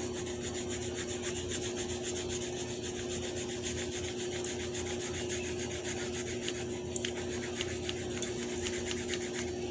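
A green colouring pen or crayon scribbling fast back and forth on the page of a small spiral notebook, a steady run of scratchy strokes as the page is coloured in.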